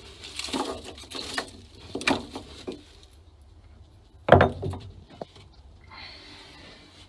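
Irregular knocking, scraping and rustling as someone moves about in the cramped wooden hull, with one loud thump about four seconds in.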